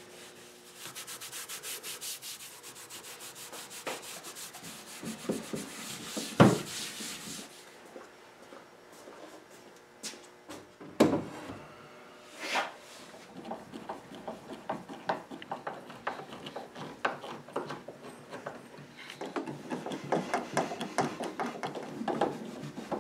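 Fine 0000 steel wool rubbing beeswax polish into the original finish of an oak tabletop, in rapid, even back-and-forth strokes, with a sharp knock about six seconds in. After that come scattered light knocks and taps, and near the end a run of short scratchy strokes.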